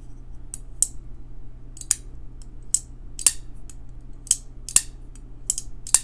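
Pro-Tech Malibu button-lock flipper knife being opened and closed repeatedly by hand, each action giving a sharp metallic click. There are about nine clicks, several of them in quick pairs.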